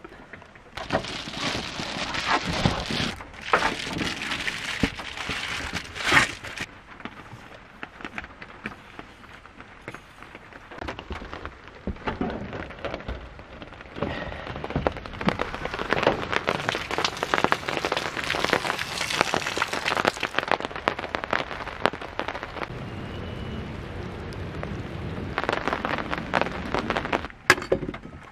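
Rain pattering, heavier in some stretches and lighter in others.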